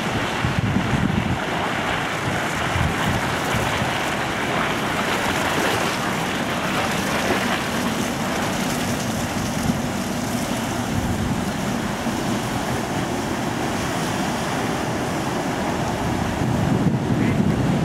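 Wind buffeting the microphone in gusts, strongest near the start and again near the end, over the steady low rumble of the cargo ship Sormovskiy 3061 passing close by and the wash of water along its hull.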